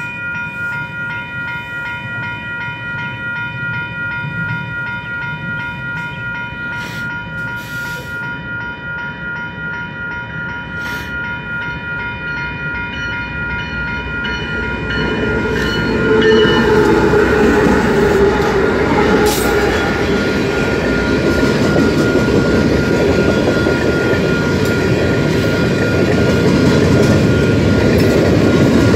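Level-crossing warning bell ringing steadily. About halfway in a freight train's horn sounds as the locomotive comes up to the crossing. The train then rumbles past loudly, its wheels clicking over the rails.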